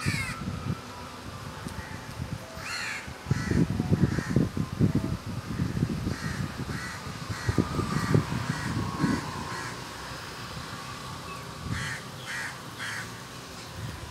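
Crows cawing in short runs of repeated calls, with low thumps and rumble on the microphone that are loudest through the middle.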